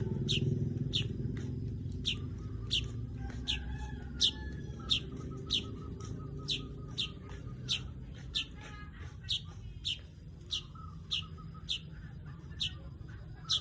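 Weaver bird (manyar) repeating a sharp "cret" call note, each a quick chip that falls in pitch, about one and a half per second. A low rumble sits underneath in the first half and fades away.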